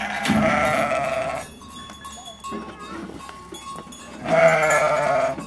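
Sheep in a flock bleating: two long, wavering bleats, one at the start and a second about four seconds in.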